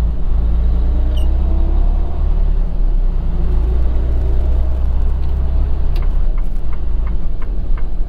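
Low steady rumble of a semi truck's diesel engine and road noise inside the cab while driving. A few seconds from the end, the turn signal starts ticking, about three ticks a second.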